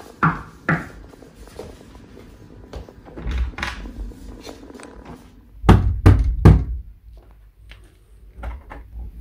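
Knocking on a door: two sharp knocks at the start, then three loud, deep knocks in quick succession about six seconds in.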